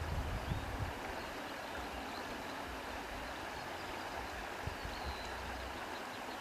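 Wind blowing steadily through grass, an even rushing hiss with a few brief low rumbles from gusts.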